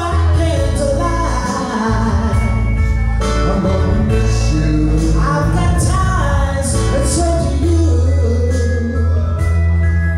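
Karaoke singing: a woman and a man singing through microphones over a backing track with a strong, steady bass.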